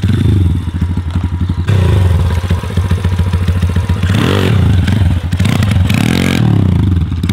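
MRF 140 pit bikes' small single-cylinder engines revving hard under acceleration, with two rises and falls in pitch in the second half as the throttle is opened and closed.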